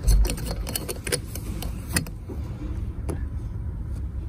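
Scattered clicks, knocks and light metallic clinks of hardware being handled while a screw is fitted into a metal curtain-rod bracket with a cordless drill's driver bit. A low thump comes right at the start.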